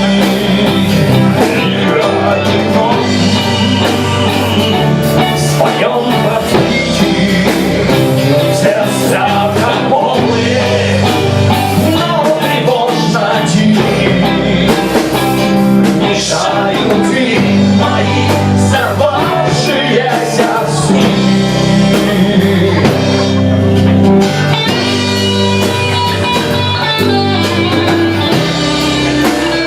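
Rock band playing live and loud: electric guitar, bass guitar and drum kit.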